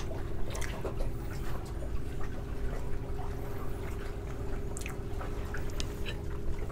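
Chewing a mouthful of kimchi carrot close to the microphone, wet mouth sounds with a few small clicks, over a steady low background hum.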